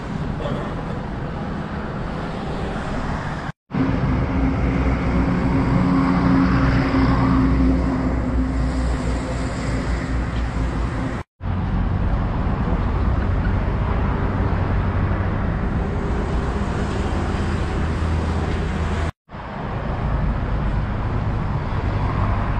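Street ambience of road traffic: a steady low rumble of passing vehicles, with one engine standing out for a few seconds after the first break. The sound drops to silence three times, briefly each time.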